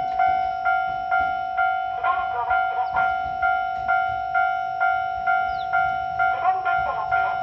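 Japanese railway level-crossing warning bell ringing at about two strokes a second, each a steady electronic ding that fades before the next, signalling that a train is approaching. A short warbling sound rises over it twice, about every four seconds.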